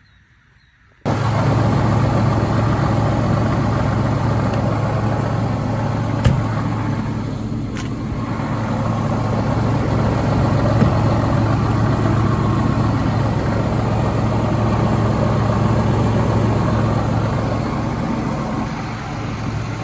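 Farm tractor's diesel engine running steadily under load, with a strong low hum, starting about a second in. Two brief clicks come through it about six and eight seconds in.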